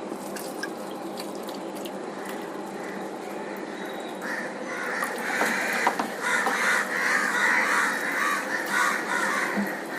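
Water sloshing and splashing in an aquarium tank as fish are netted out, louder from about four seconds in, over a steady hum.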